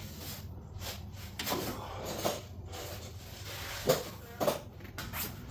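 Intermittent knocks and clinks of hand tools and metal parts being handled during engine teardown, about six separate short strikes.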